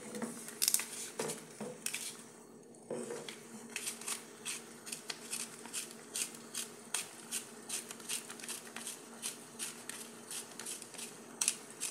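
Black pepper being ground over a pan of meat sauce: short, even clicks from the pepper mill, about two or three a second, after a little wooden-spoon scraping against the pan at the start. A steady low hum runs underneath.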